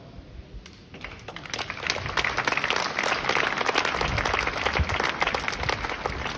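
Crowd clapping and applauding, starting thinly about a second in and swelling into steady applause.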